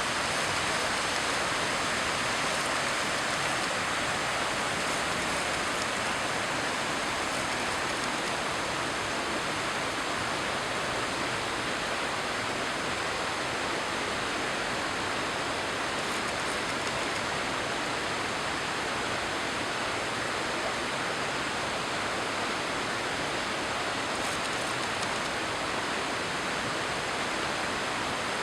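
Steady, unbroken rush of a waterfall falling in a single drop, its plunge pool filled in with typhoon flood debris.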